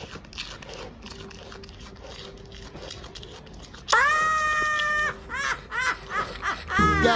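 A woman's shrill, high-pitched laughter starts suddenly about halfway through: one drawn-out shriek, then a run of short rising-and-falling whoops. Before it there is only faint, low background noise.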